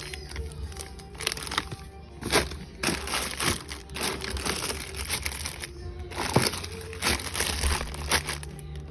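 Background music with plastic snack packaging crinkling and frequent sharp knocks and clicks of items being handled and set down.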